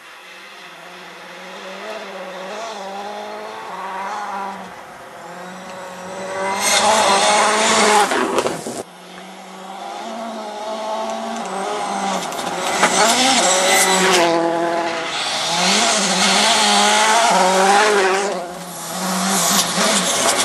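Citroën C4 WRC rally car at full attack on a gravel road, its engine note rising and falling again and again as the driver works through the gears. Gravel spray hisses in the loudest stretches. The car grows louder as it approaches, with a sudden brief drop about nine seconds in.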